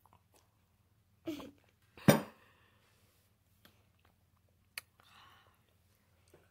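A drink set down on a hard surface: a short knock, then a louder clunk with a brief ring about two seconds in. A sharp click and a faint rustle follow a few seconds later.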